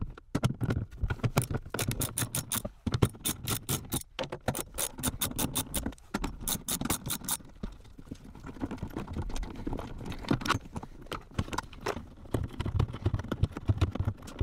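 Socket ratchet clicking as 13 mm bolts are wound out: a fast, even run of clicks for about the first half, then scattered clicks and rattles of the tool and bolts being handled.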